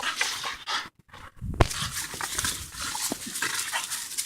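Two Staffordshire terriers play-wrestling, breathing hard, with a few light knocks. The sound drops out briefly about a second in.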